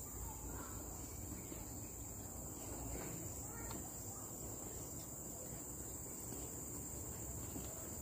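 Forest insects calling in a continuous, steady high-pitched drone, with a faint low rumble underneath.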